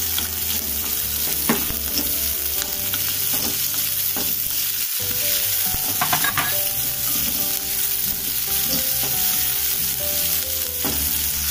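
Sliced capsicum and onion sizzling in hot oil in a metal kadhai, stirred with a spatula. The hiss is steady, with a number of short scrapes and knocks of the spatula against the pan.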